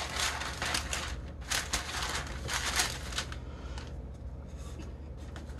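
Fine iridescent glitter rustling and hissing as it is poured and sprinkled over paper and a tumbler, in a series of short bursts for about three seconds, then softer.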